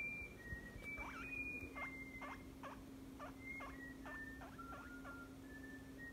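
Pet guinea pig squeaking back and forth with a man who whistles short high notes at it. From about a second in to about five seconds in, a run of about ten quick squeaks falls in pitch, with a low steady hum underneath.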